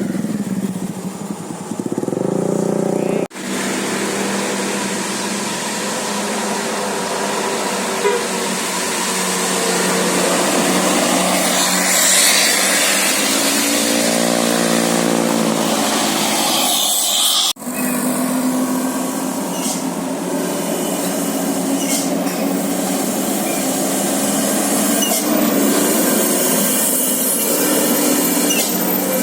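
Bus and traffic noise with a bus's multi-tone 'basuri' telolet horn sounding a tune, broken off abruptly twice.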